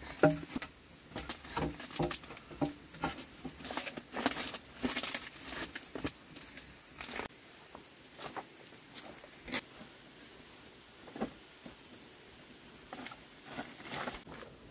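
Scattered knocks and clicks of bamboo poles being handled and set down, with rustling and crinkling of banana leaves underfoot. The sharpest clicks come just after the start and again about halfway through.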